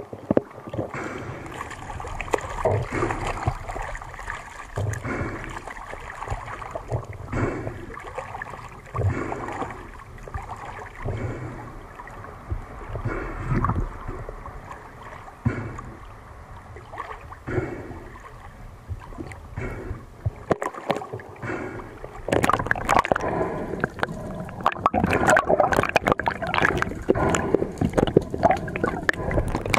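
Water gurgling, sloshing and splashing as a diver swims toward the beach through a strong current, in uneven bursts. It grows louder and busier with splashes about two-thirds of the way through.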